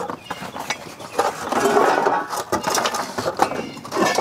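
Metal hand tools and parts clinking and rattling as they are handled, a run of sharp clicks with a denser clattering stretch about a second in.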